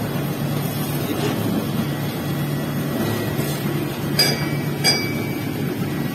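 Steady low machine hum with two sharp, ringing metal clinks a little after four seconds and again near five seconds: steel moulding flasks knocking together as they are handled.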